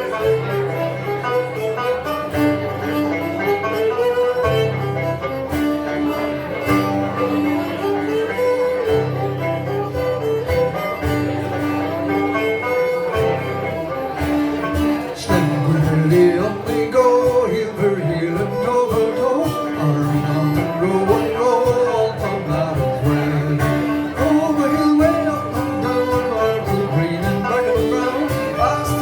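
Folk band playing an instrumental passage between verses: strummed 12-string guitar and banjo under a melody line that rises and falls.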